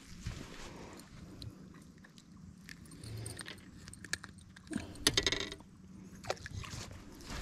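Close handling noises as a bass is unhooked and held in the hands over the boat deck: rustling and scattered clicks, with a quick burst of rattling clicks about five seconds in. A faint steady hum runs underneath.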